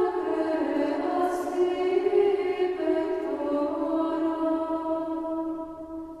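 Background choral music: voices holding long, slow chant-like notes that shift gently, fading down near the end.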